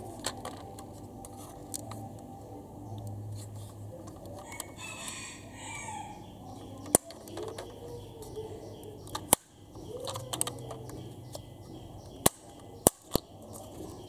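Sharp clicks of a diecast Rolls-Royce Cullinan model's hinged doors snapping open and shut by hand, five spread out, three close together near the end.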